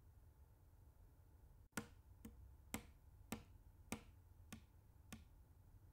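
A steady series of seven sharp taps, about one every half second, starting a little under two seconds in, over a faint low room hum.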